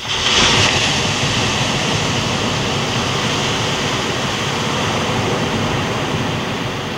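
Loud steady rushing noise that starts abruptly and eases off slightly near the end.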